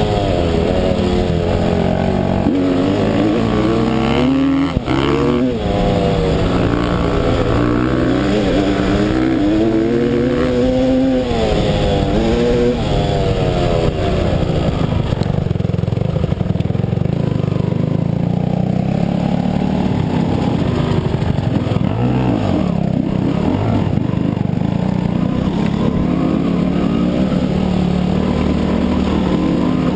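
Dirt bike engine heard from on board, revving up and down over and over for the first dozen seconds or so, then running more steadily at lower revs.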